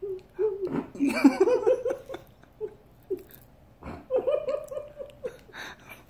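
A man laughing in two bursts: a quick run of ha-ha pulses about a second in, and another about four seconds in.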